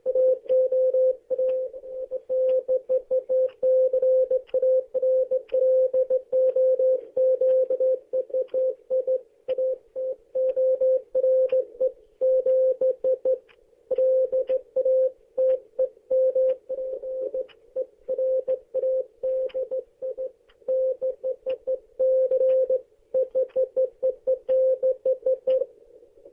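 Morse code telegraphy: a single steady mid-pitched beep keyed on and off in short and long tones (dots and dashes) at an irregular rhythm, with faint clicks as each tone starts and stops.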